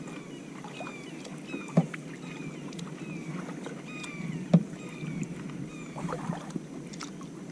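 Canoe paddling: paddle strokes splashing in moving water, with two sharp knocks of the paddle against the canoe's hull, about two seconds in and again about four and a half seconds in.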